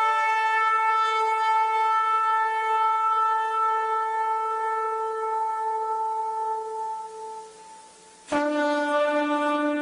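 Shofar (ram's horn) sounded in long held blasts: one steady note that fades out about three-quarters of the way in, then after a short gap a new blast at a lower pitch.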